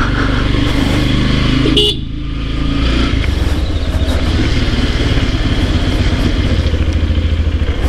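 Motorcycle engine running at low road speed, with a short horn toot just before two seconds in; after a brief dip the engine settles into a steady pulsing run.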